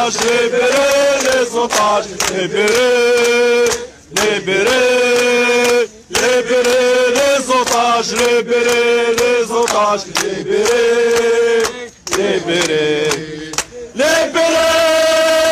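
Crowd of male protesters chanting slogans in unison, in repeated phrases of about two seconds with short breaks between them.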